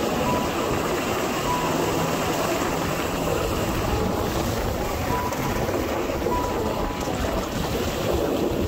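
Snow rushing off a pickup truck's plow blade as it pushes through fresh snow: a steady, even whooshing.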